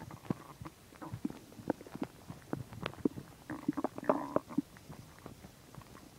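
Human stomach growling while digesting a meal of chicken and milk: a string of short gurgles and pops, with a longer bubbling gurgle about four seconds in.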